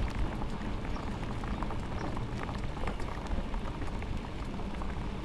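Mountain bike tyres rolling on wet asphalt: a steady spattering hiss with many small clicks, over a low rumble of wind on the microphone.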